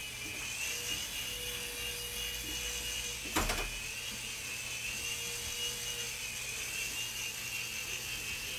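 Mini remote-control toy helicopter's small electric motor and rotor whining steadily, the pitch wavering gently as it flies. A single short knock about three and a half seconds in.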